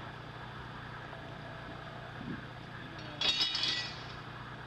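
A short burst of metallic clinking and clattering from framing work, about three seconds in, over a steady low hum.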